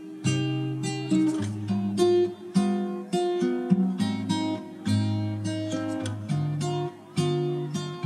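Background music: acoustic guitar, notes picked one after another over a low bass line.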